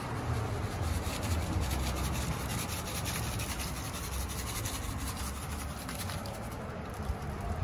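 Paper seed packet being shaken over bare soil: small seeds rattle inside it and the paper rustles in quick repeated shakes as wildflower seeds are scattered.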